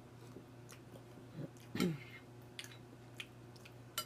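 Close-up mouth sounds of a person eating: scattered wet smacking clicks while chewing, with a short throaty sound about two seconds in that slides down in pitch.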